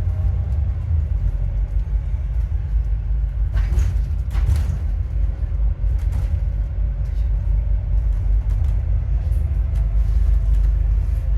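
Cabin sound of an Alexander Dennis Enviro400MMC double-decker bus under way: a steady, heavy low engine and road rumble, with a faint whine above it from an alternator the uploader calls bad. Two brief noises come close together about four seconds in.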